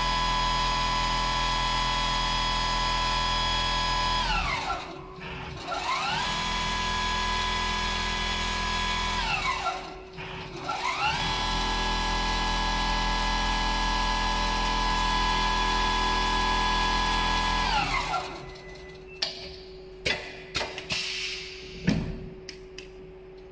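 Richpeace CNC pattern sewing machine stitching at speed with a steady high whine. Twice it winds down, pauses briefly and speeds up again. About 18 s in it stops, followed by a few sharp clicks and knocks from the machine.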